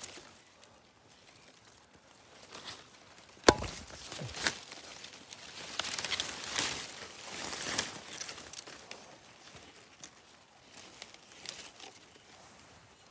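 Scattered rustling and crackling of leaves and twigs being handled and stepped on, with a sharp knock about three and a half seconds in, the loudest sound, and a smaller knock a second later.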